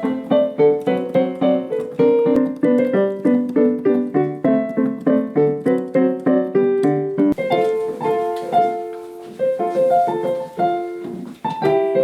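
Piano being played by a child: a steady run of repeated notes over a low accompaniment, changing a little after seven seconds to slower, longer-held chords.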